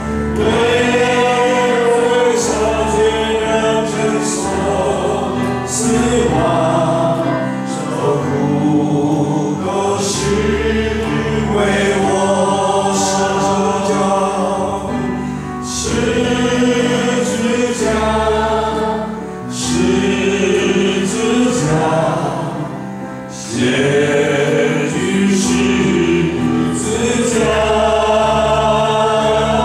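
A male worship leader and congregation singing a slow Chinese worship song about the cross, with held notes, over instrumental accompaniment.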